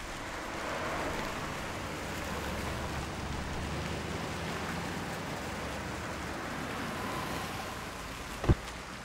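Fountain jets splashing steadily, with a low steady rumble underneath. A single sharp thump comes near the end.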